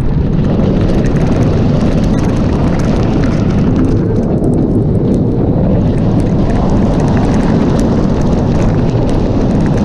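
Wind rushing over the microphone on a moving steel roller coaster, over the steady rumble of the train running along the track.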